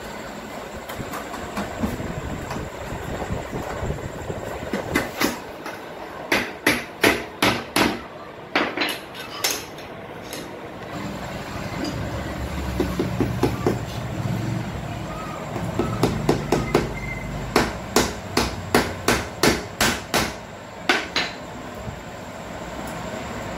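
Hammer tapping plastic corner joiners into the channels of a mosquito-net window frame. There are two runs of sharp strikes, about two or three a second, one starting about a quarter of the way in and another past the middle.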